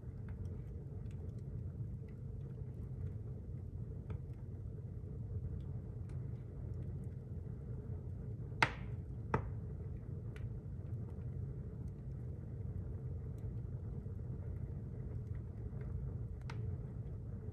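Wood fire burning at full flame in a masonry heater's firebox: a steady low rumble with sparse faint crackles, and two sharp pops less than a second apart about halfway through.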